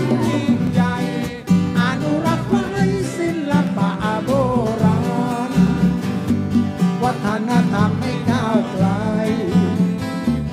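Band music: guitars and a wavering melodic lead line over a steady, repeating bass.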